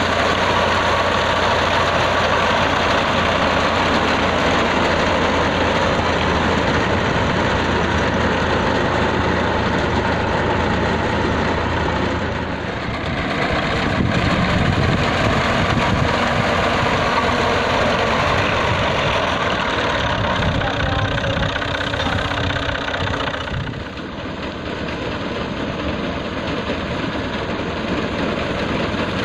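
Diesel engine of an old Al-Ghazi tractor running steadily under load as it drives a front-mounted reaper through standing wheat. The sound shifts around a third of the way in and drops a little in level about two-thirds through.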